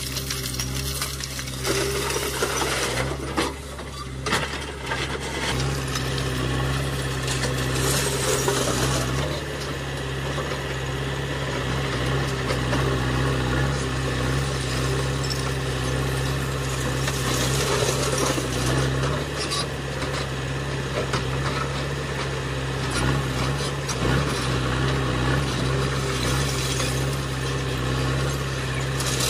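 Diesel engine of a JCB 3DX backhoe loader running steadily, with loose stones clattering and scraping as the bucket works through a rock pile.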